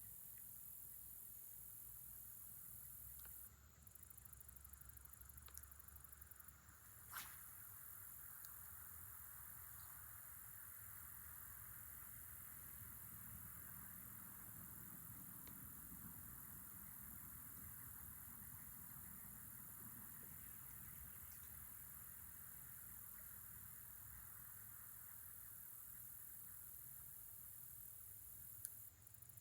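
Near silence: faint outdoor background, with a single sharp click about seven seconds in.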